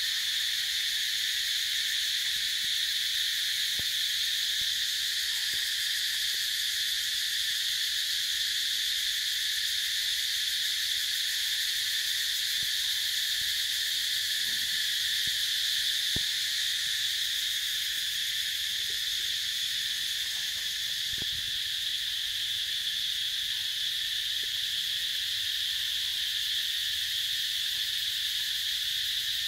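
A chorus of insects making a steady high-pitched drone, with a few faint ticks.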